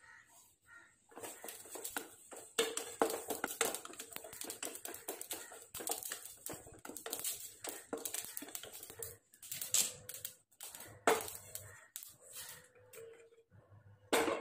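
Wooden spatula stirring fennel seeds and whole spices in a dry nonstick pot, with the seeds scraping and rattling against the pan in quick, irregular clicks as they dry-roast. There is a sharp knock near the end.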